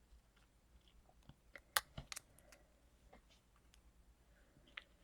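Faint handling of paper and stickers: scattered light clicks and rustles, with a sharper tap and a few quick clicks about two seconds in.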